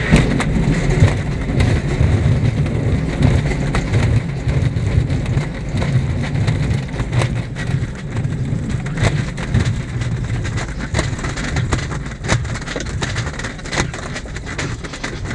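Glider landing on a grass airfield and rolling out: a jolt at touchdown right at the start, then a steady low rumble with many small knocks and rattles as the main wheel and airframe run over the turf, easing a little toward the end.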